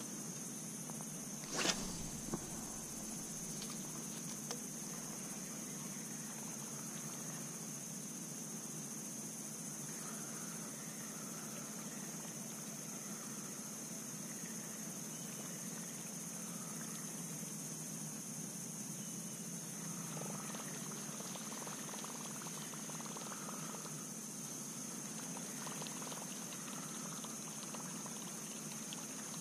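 Steady high-pitched drone of insects, with a sharp knock about two seconds in and a smaller one just after.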